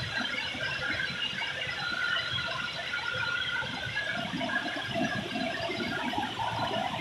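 Rice harvesting (reaper) machine running steadily, a wavering high whine over a rough continuous mechanical noise.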